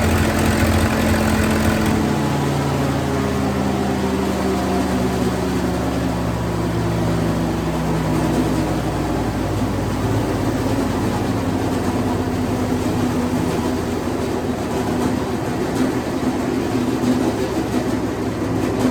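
Wood chipper's spark-ignition gasoline engine running steadily, its speed dropping a little over the first several seconds and then holding even.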